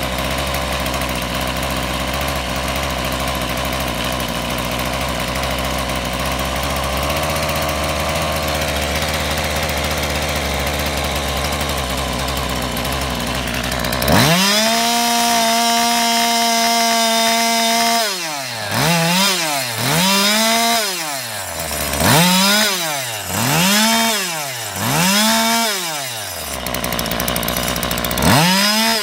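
Husqvarna 142 two-stroke chainsaw engine running after a crankshaft-seal replacement cured its no-start fault. It idles steadily for about fourteen seconds, is then revved up and held high for a few seconds, and is then blipped up and down about five times, settles back briefly, and is revved once more near the end.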